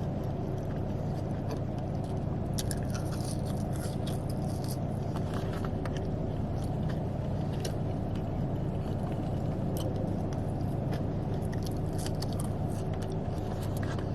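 A person chewing and eating fast food, with scattered small clicks and crackles from the food and its packaging, over a steady low hum.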